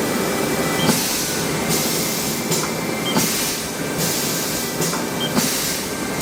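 Haas ST-10 CNC lathe running: a steady mechanical hum with repeated bursts of hiss coming and going every second or so, and a few clicks.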